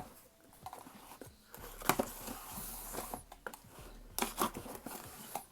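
Cardboard packaging being handled and opened by hand: scattered light knocks and clicks with bits of rustling and scraping.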